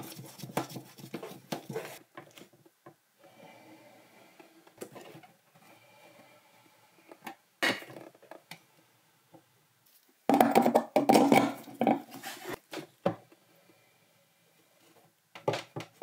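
Metal clinking and scraping as the lock nut on a stainless steel kitchen sink basket strainer is spun on by hand and then tightened with adjustable pliers: irregular clicks and rattles, with a sharp click near the middle and a louder stretch of scraping and clicking about ten seconds in.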